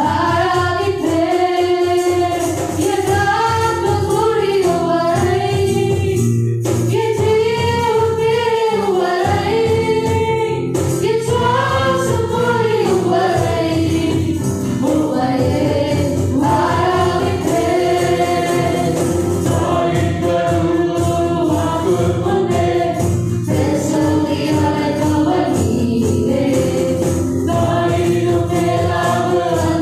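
Live Tamil worship song: a woman singing lead with other voices joining, over acoustic guitar accompaniment.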